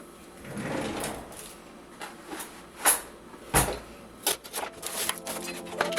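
Household items being handled: a brief rustle, then two sharp knocks about three seconds in, the second with a dull thud, followed by a run of lighter clicks and taps.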